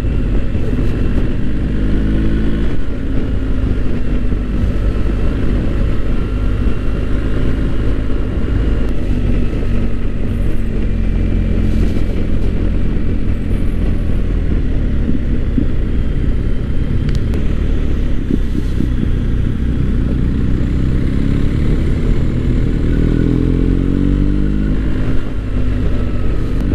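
BMW GS boxer-twin motorcycle engine running steadily while riding. The engine note climbs a few seconds before the end as the bike accelerates.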